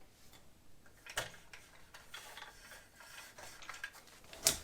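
Scattered light clicks and taps of parts being handled while a mitre saw stand is assembled, with one sharp click near the end.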